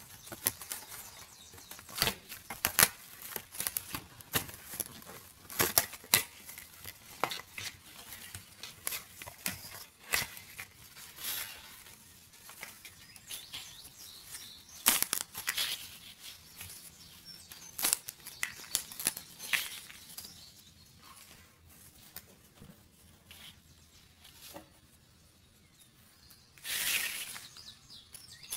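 Die-cut pieces of a cardboard 3D puzzle being pressed and popped out of their sheet: a string of short, sharp snaps and tearing of card, which thin out for a few seconds before a longer tearing rasp near the end.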